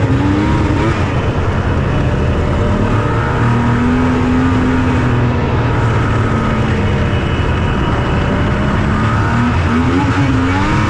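Yamaha SX700R snowmobile's three-cylinder two-stroke engine running hard under way, revving up about the start, holding a wavering pitch, then revving up again near the end.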